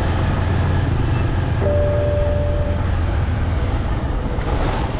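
Motorcycle engine running steadily under way, with wind and road rush. A brief steady tone sounds for about a second, about two seconds in.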